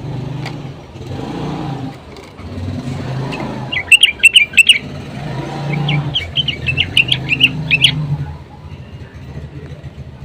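A bulbul calling in two quick bouts of rapid, bright, choppy notes, over a steady low background rumble.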